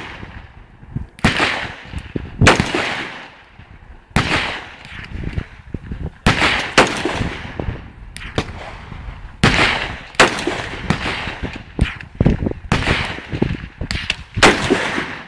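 A black AR-15-style rifle firing single shots, about a dozen at uneven gaps of roughly one to three seconds. Each shot is a sharp crack followed by a short echo.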